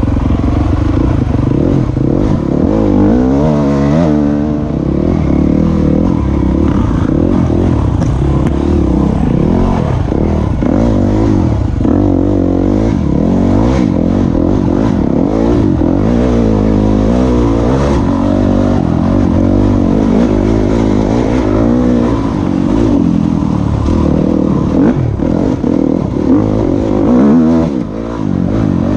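Enduro dirt bike engine revving up and down continuously as it is ridden over a rough trail, with knocks and rattles as it goes over bumps.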